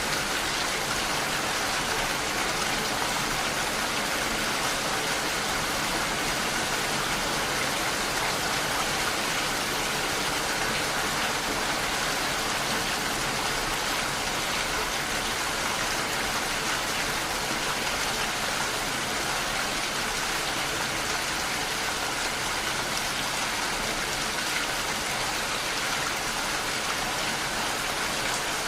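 Steady rain falling, an even, unbroken hiss of many drops with no single drop standing out.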